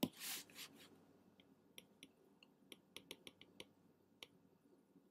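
Faint, scattered ticks of a stylus tip tapping and dragging on a tablet's glass screen during handwriting, about ten light clicks bunched through the middle.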